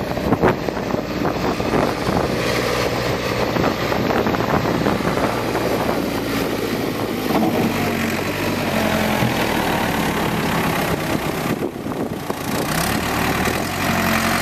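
Ford 555C backhoe loader's diesel engine running steadily under work, easing off for a moment about twelve seconds in and then picking up again.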